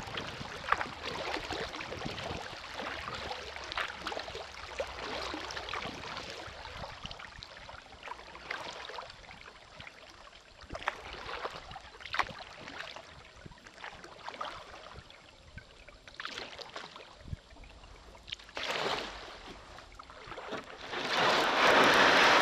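Kayak paddle strokes in calm river water: the blades splash and drip, with many small drips. About a second before the end, a loud steady rushing noise comes in.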